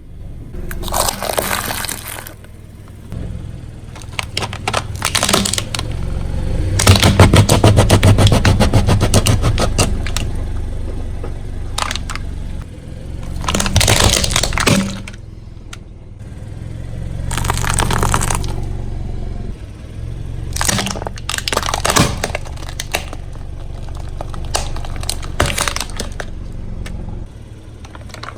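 A car's tyres rolling over and crushing brittle objects: several bouts of cracking and crunching, the longest and loudest from about seven to ten seconds in, over a low rumble from the car.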